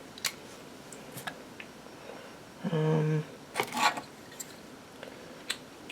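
Small metal clicks and clinks from Zippo lighters and their parts being handled, with the loudest clatter about three and a half seconds in. A short low hum sounds just before it.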